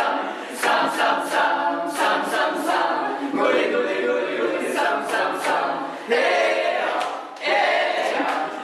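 Background music of a choir singing a capella, with many voices together and frequent sharp accents.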